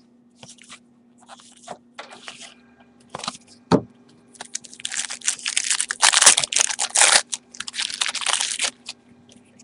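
Foil trading-card pack wrappers being torn open and crinkled, a dense burst of rustling in the second half, after a few small clicks and one sharp knock a little before.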